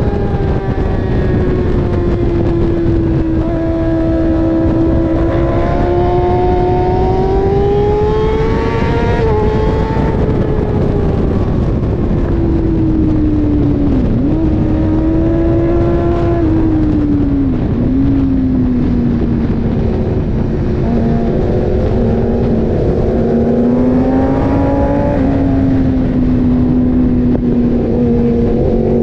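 Sport motorcycle engine heard from on board at track speed under heavy wind rush, its pitch rising and falling with the throttle, with two brief dips around the middle as it shifts gear.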